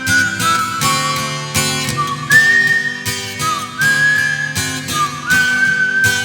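Instrumental interlude: an acoustic guitar strums chords under a high lead melody of long held notes that slide into one another.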